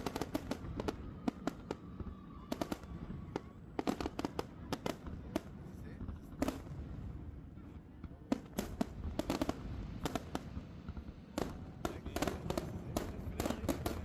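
Aerial fireworks going off: sharp bangs and crackles in irregular clusters, several a second at times, over a low rumble.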